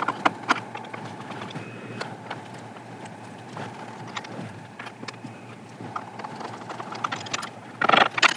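Scattered, irregular small clicks and taps of a screwdriver working the screws and metal hardware of an RV window's crank mechanism (torque operator). A brief louder burst comes near the end.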